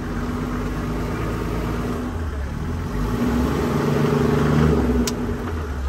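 Toyota Land Cruiser's engine running, heard from inside the cabin, getting louder for a moment about four seconds in. A single sharp click comes near the end.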